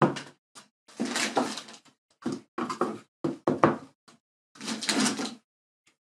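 Hard plastic parts of a new wet-and-dry vacuum cleaner knocking, clicking and scraping against its plastic drum as they are unpacked and handled, with some rustling of packaging: a string of short knocks with gaps between them.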